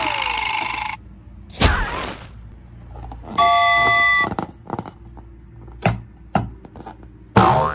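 A string of short, separate sound effects: a buzzing noise, a whoosh, an electronic beep tone held for about a second, then a few sharp clicks and a short burst near the end.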